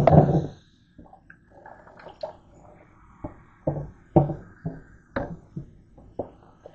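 Tap water splashing onto a plastic cutting board in a stainless-steel sink, then the wet board being handled, with scattered light knocks and splashes as it bumps and drips against the sink.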